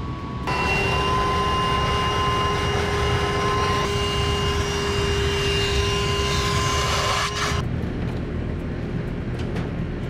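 Shop vacuum running through a corrugated hose: a steady whining motor noise that switches on about half a second in and cuts off about seven and a half seconds in.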